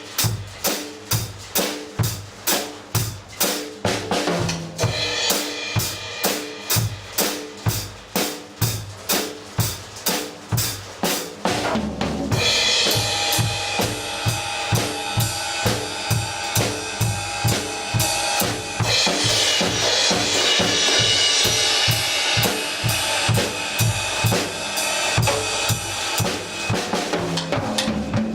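Drum kit played alone in a steady beat, bass and snare hits about twice a second. About twelve seconds in, cymbals start washing over the beat and stay on to the end.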